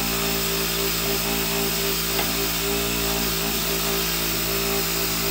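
JOOLTOOL rotary tool running steadily at constant speed, a steady motor hum, with a 120-grit abrasive fitted on its flex shaft for refinishing a griddle.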